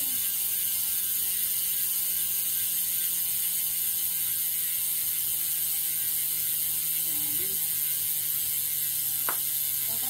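Koozer XM390 rear hub freewheeling: the wheel spins while the cassette stays still, and the freehub's pawls ratchet in a steady, fast, high-pitched buzz.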